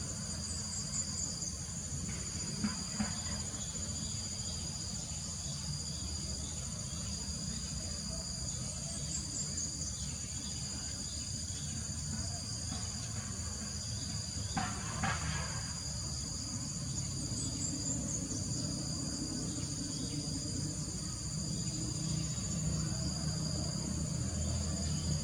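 Steady chorus of insects, a continuous high-pitched trill at two pitches, over a low rumbling background, with a few short chirps about a second in and around fifteen seconds in.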